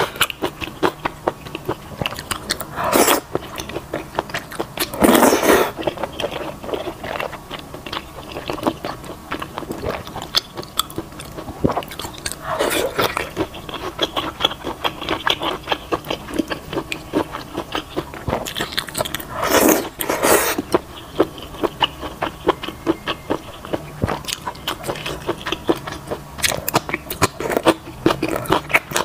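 Close-miked eating of wide potato noodles in a spicy soup: steady wet chewing and smacking, with several louder slurps, each lasting under a second, about 3 s, 5 s, 13 s and 20 s in.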